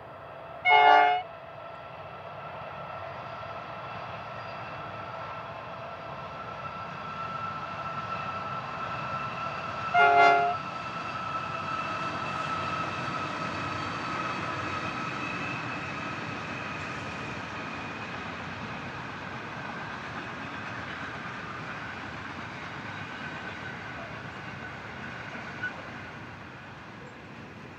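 Diesel freight train passing. The lead locomotive's horn sounds two short blasts, about a second in and again about ten seconds in. Then the rumble of the locomotives and wagons swells and slowly fades as the long train rolls by.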